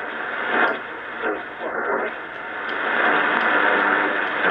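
Drake R77 shortwave receiver being tuned across the 25-metre broadcast band: static and hiss between stations through its speaker, with brief snatches of broadcast voices.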